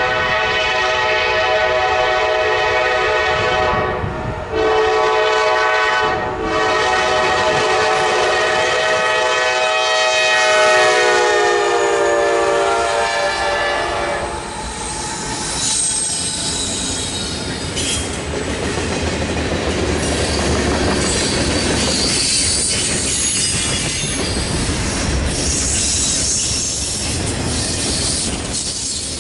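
Kansas City Southern freight train's locomotive air horn blowing a long chord with two brief breaks, its pitch dropping as the lead locomotive passes about 13 seconds in. The locomotives and a string of autorack cars then roll by close up, with steady wheel-on-rail clatter and high squealing.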